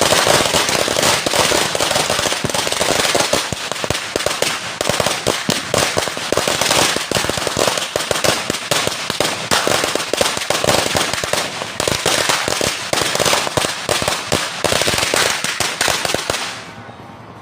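A 1000-round Judas belt firecracker string (sawa) going off in a dense, continuous rattle of rapid bangs. It stops abruptly about a second before the end, as the belt burns out.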